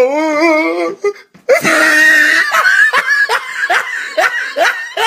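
Young people laughing: a wavering, drawn-out laugh, a short break, then a loud outburst followed by a run of short laughs about two a second.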